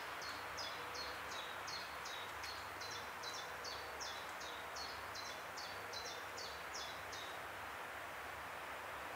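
Great tit giving a long run of high two-part notes, each stepping down in pitch, about three a second, stopping about seven seconds in, over a steady background hiss.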